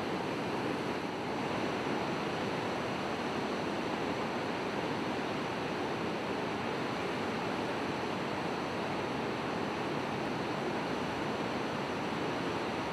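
Steady rush of surf breaking on a river-mouth bar.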